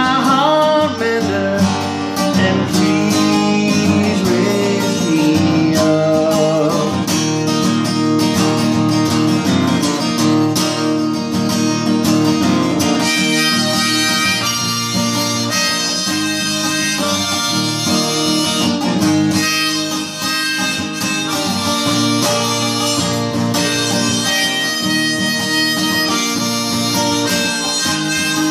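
Instrumental break: a harmonica held in a neck rack plays a melody over acoustic guitar strumming.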